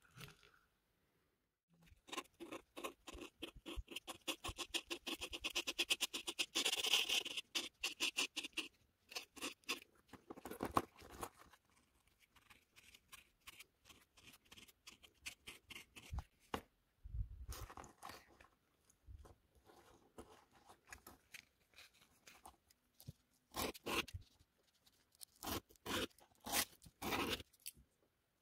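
Close-up crackling and clicking of adhesive tape being handled and pressed onto a steel watch bracelet's links, with a dense run of rapid crackles in the first third. Near the end come a series of short scraping strokes as a brushed-steel link is rubbed on abrasive paper.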